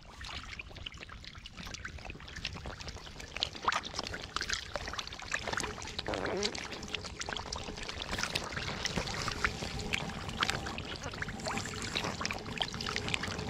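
Shallow water splashing and trickling as hands work through it, with many small irregular splashes.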